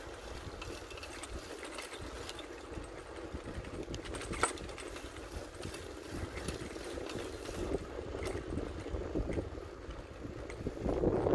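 Riding a bicycle: a steady rumble of wind on the microphone with rattling and clicking from the bike, one sharper click about four seconds in, and a louder rushing sound near the end.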